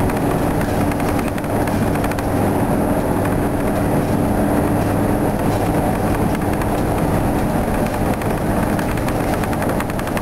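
Engine and drivetrain of a 1972 Flxible New Look bus heard from inside the cabin while it cruises: the Detroit Diesel 8V71 two-stroke diesel running at a steady pitch under road and body noise.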